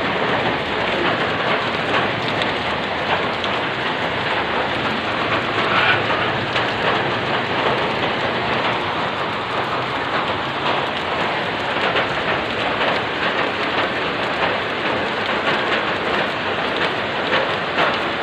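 Heavy rain pouring onto a flooded street: a steady, dense hiss of drops splashing on standing water.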